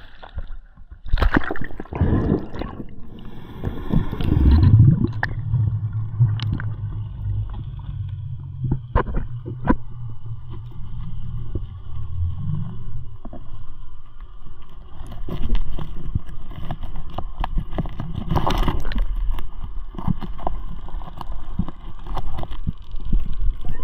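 Underwater sound picked up by a head-mounted action camera on a snorkel dive: muffled gurgling and sloshing water with scattered clicks and pops, and splashing near the start as it goes under. A low steady hum runs from about five to thirteen seconds in.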